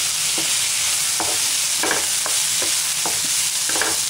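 Chopped onions and curry leaves sizzling in hot oil in a nonstick pan. A wooden spatula stirring them makes several short scrapes against the pan.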